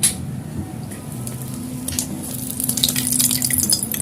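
Egg frying in hot oil in a pan: sizzling with crackling spatter that grows louder about two and a half seconds in. A sharp knock right at the start.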